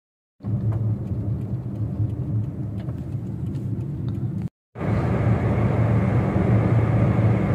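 Car cabin noise while driving at highway speed: a steady low engine and tyre rumble. It cuts out for a moment about four and a half seconds in and then resumes.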